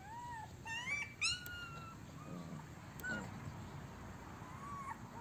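Husky-mix puppies whining: thin, high, arching cries, with a quick run of rising whines about a second in and a few fainter ones later.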